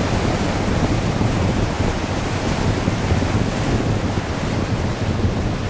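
Wind buffeting the microphone: a steady rushing noise.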